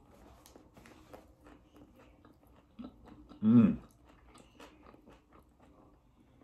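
A person chewing a mouthful of burger close to the microphone: many faint, wet mouth clicks throughout. A loud hummed 'mmm' of enjoyment comes about halfway through.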